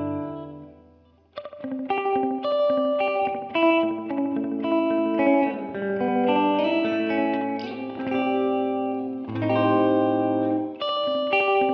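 Electric guitar, a Fender Jazzmaster Modern Player with humbuckers, played through a simulated Fender Princeton Reverb amp. A ringing chord dies away in the first second or so, then a melodic run of picked single notes and overlapping notes follows.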